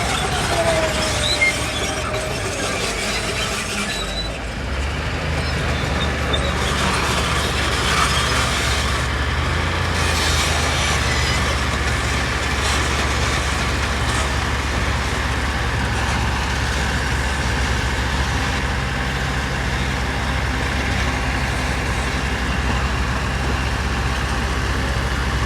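Diesel engine of heavy construction machinery running steadily, with a brief falling squeal near the start.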